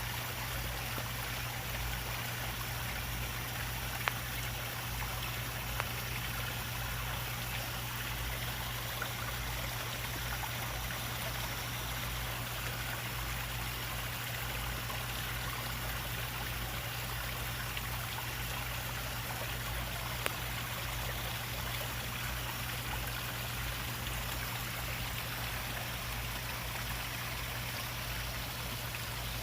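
Koi pond water running and trickling steadily, with a low steady hum underneath and a few faint clicks.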